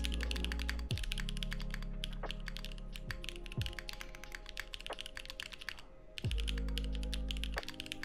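Continuous fast typing on a Keycult No. 2/65 mechanical keyboard with lubed Auralite linear switches in an aluminium plate and GMK keycaps: a dense, even run of keystroke clacks. Background music plays underneath.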